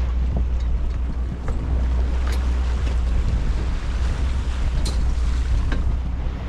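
Steady low rumble of a fishing boat at sea, the engine running with wind buffeting the microphone, and a few light knocks.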